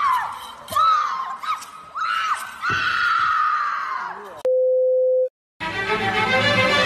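Onlookers giving repeated short, high-pitched shouts and shrieks that rise and fall in pitch. About four and a half seconds in, a steady electronic beep sounds for under a second and cuts off. After a brief silence, background music starts.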